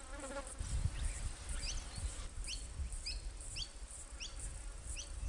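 Cockatiel calling: a series of short, quickly rising chirps, about two a second, starting about one and a half seconds in.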